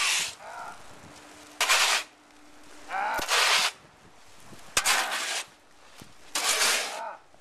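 A man's sharp, voiced exhalations with exertion, five in a steady rhythm about one every one and a half seconds, as he works out hard.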